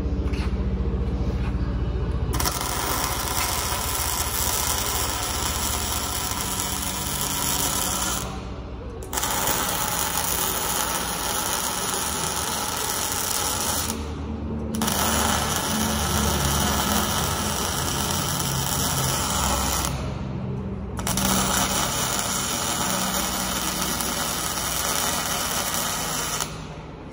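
MIG welding arc crackling steadily on a steel frame, in four runs of about five to six seconds each with short pauses of about a second between them as the welder stops and restarts the bead.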